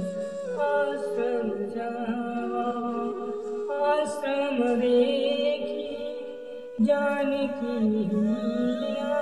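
A voice singing a slow devotional chant in long, held notes that glide between pitches, in phrases that break off and restart about every three seconds.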